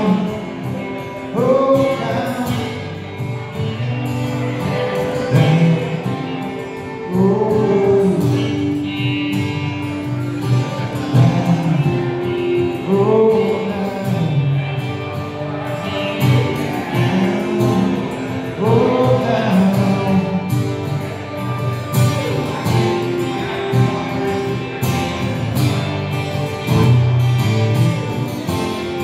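A live band playing a song: a man singing over strummed acoustic guitar and electric guitar.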